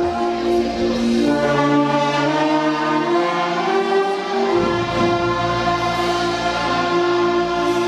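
Church orchestra playing a hymn instrumentally: sustained chords, held and changing every second or so.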